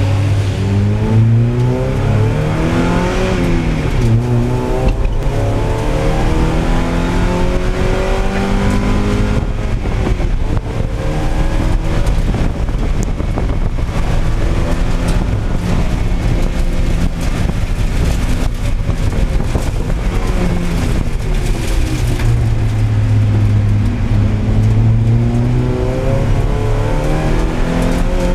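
Spec Miata's four-cylinder engine heard from inside the cockpit at racing speed, revs climbing through the gears and falling away on braking and downshifts, over a steady hiss.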